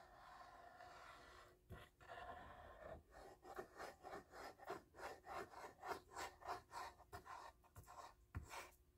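Faint scratchy rubbing of a glue bottle's nozzle dragged back and forth across paper, spreading liquid glue, in short strokes about three a second from about two seconds in.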